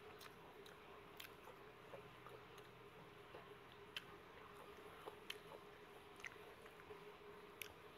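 Faint close-up eating sounds: quiet chewing with scattered small mouth clicks and smacks as a bite of sticky rice and beef laab is taken and chewed, over a faint steady hum.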